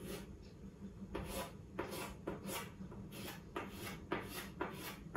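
Chalk scratching on a chalkboard as short lines are drawn one after another: about a dozen quick strokes, sparse in the first second and then two or three a second.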